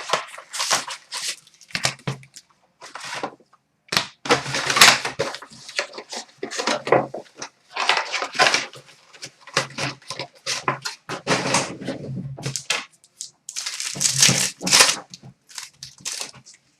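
Hockey trading card packs being torn open, their wrappers crinkling and tearing in irregular rustling spurts as the cards are handled.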